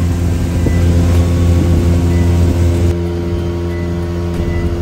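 Small boat's engine running steadily: a low hum with steady overtones. About three seconds in it turns duller and a little quieter.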